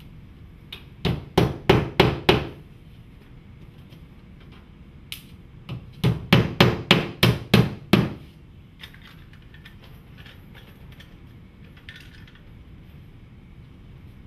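Hammer driving fasteners into the top edge of a stone-look cladding panel: a quick run of about six blows a second in, then a run of about eight blows from about six seconds in, followed by a few light taps.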